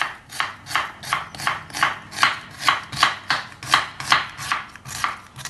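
Kitchen knife slicing onions lengthwise into thin strips on a cutting board, in an even rhythm of about two to three cuts a second.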